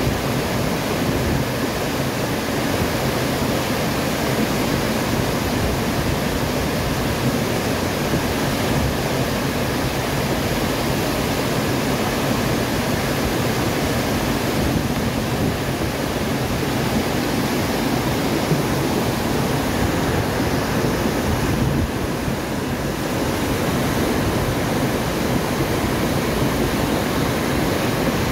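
Muddy floodwater rushing fast down a concrete channel, a steady loud torrent churning and pouring over concrete drops.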